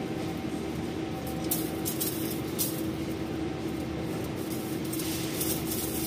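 Thin aluminium armour wires of an armoured power cable scraping and clinking in short irregular bursts as they are bent back and forth by hand to snap them off, over a steady background hum.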